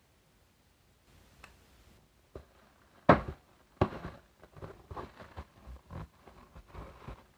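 A package being opened by hand. There are small clicks, then a sharp knock about three seconds in and another just before four seconds. A run of short, irregular handling noises follows.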